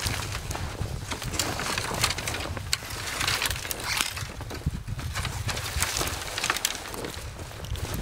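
Footsteps crunching in deep snow, with an armful of dry branches rustling and crackling as it is carried: many short sharp crackles over a low uneven rumble.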